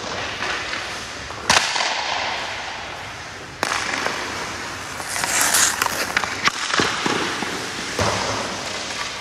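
Sharp cracks echoing around an ice rink, two of them about two seconds apart and a third near the end, typical of hockey stick and puck impacts. In between, hockey skate blades scrape and carve the ice for a couple of seconds.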